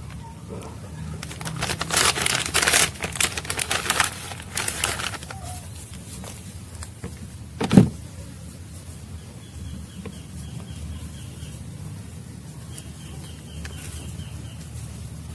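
Handling noise: bursts of rustling and crinkling for the first few seconds, then a single sharp knock about eight seconds in. A faint high, rapidly pulsing trill comes twice in the second half over a low steady hum.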